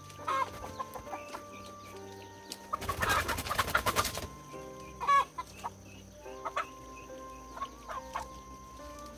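Chickens clucking, with a loud commotion lasting about a second and a half about three seconds in, over soft background music.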